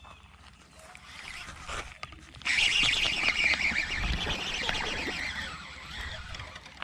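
A small hooked largemouth bass splashing and thrashing at the water's surface. The splashing starts suddenly about two and a half seconds in, lasts about three seconds and then dies down.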